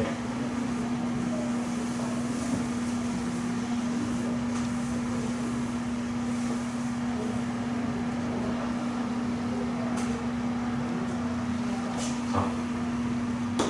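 A steady low hum holding one pitch, over even room noise, with a couple of faint light ticks near the end.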